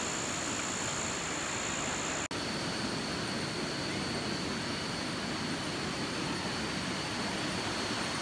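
A steady rushing hiss with a constant high, thin insect drone over it. The sound drops out for an instant about two seconds in; after that the drone sits at a lower pitch.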